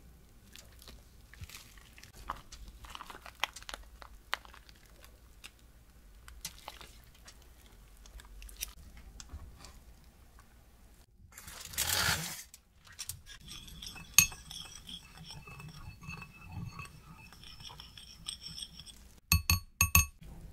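Close handling sounds of a plastic piping bag being squeezed to fill doughnuts with custard cream: soft clicks and crinkles, with one louder rustle of plastic or foil about halfway through. Near the end come a few sharp clinks, like a ceramic bowl being set down.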